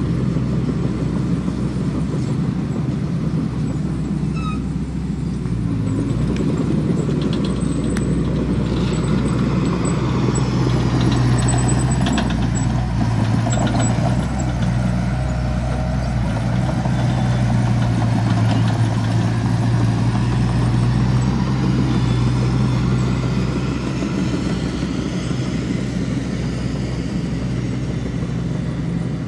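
Diesel engine of a construction machine running steadily under load, its low hum a little stronger through the middle stretch.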